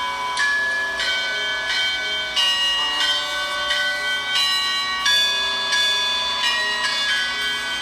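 A set of six church bells ringing a repique. Strokes fall in quick succession, and each bell's tone rings on over the next.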